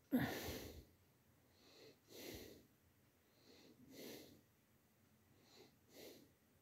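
A person breathing softly close to a microphone, about one breath every two seconds, with a louder, sudden breath right at the start.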